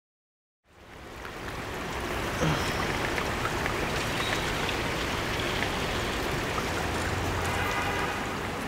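Water running along a street gutter, a steady rush that fades in after a moment of silence.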